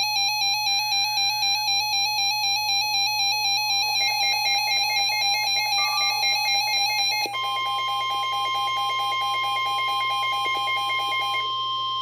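RadioShack Public Alert weather radio sounding its warbling electronic alarm for a severe thunderstorm warning. About seven seconds in, the sound changes to a steady, continuous alert tone from the NOAA Weather Radio broadcast, and the warbling stops shortly before the end.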